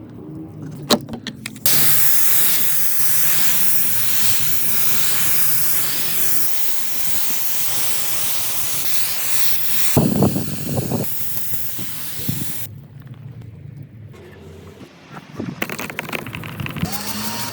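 A loud, steady spraying hiss that starts about two seconds in, with a few sharp knocks around the middle. It drops away near thirteen seconds and starts again near the end.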